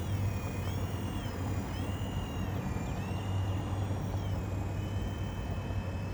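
Mini RC helicopter's electric motor and rotor whining. The pitch rises and falls repeatedly as the throttle is worked while it climbs and holds in the wind, then steadies near the end.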